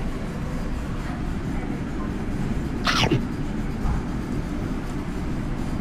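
Ramen noodles slurped from the bowl: one short, sharp slurp falling in pitch about three seconds in, over a steady low rumble of restaurant room noise.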